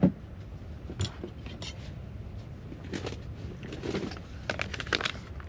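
A handful of light clicks and knocks, spread out, the sharpest right at the start and a quick cluster of them near the end.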